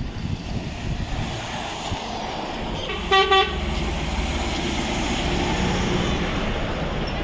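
DAF articulated lorry giving two quick toots of its horn about three seconds in, then its diesel engine and tyres passing close by.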